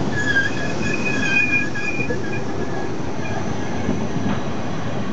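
NS ICMm (Koploper) intercity electric train rolling slowly into the platform as it arrives, with a low rumble from its wheels. A high, wavering squeal from the running gear is heard in several tones for about the first two seconds, then fades out.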